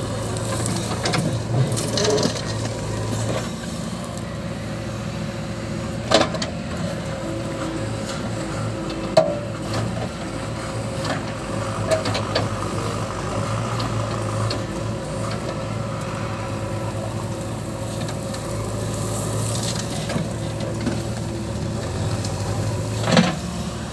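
JCB 3DX backhoe loader's diesel engine running steadily under load while the backhoe digs and dumps earth. A few sharp knocks come from the bucket and falling soil and stones.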